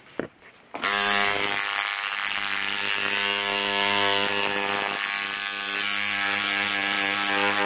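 Rotary tattoo machine switched on about a second in and running with a steady, even buzz. Its give is turned down, so the needles cut right through the soft foam practice paper.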